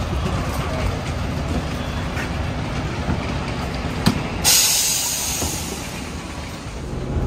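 Airport apron bus idling with a steady low rumble. About four seconds in there is a click, then a sudden hiss of compressed air from the bus's pneumatic system that fades away over a second or so.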